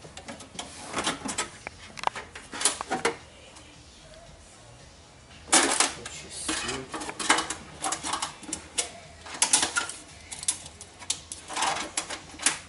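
Irregular clicks, knocks and rattles from hands working on the wiring and lock area inside a stripped car door. There is a lull about three seconds in, and a sharp knock starts the busier second half.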